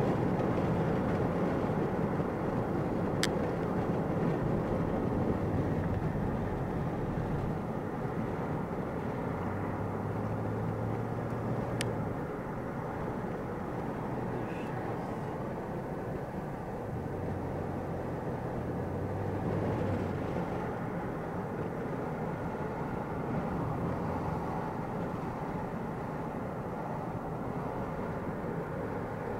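Steady road and engine noise of a moving car, heard from inside the cabin, with a low engine hum that comes and goes.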